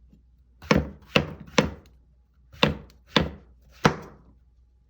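Six sharp chopping strokes of a knife on a wooden cutting board, in two runs of three.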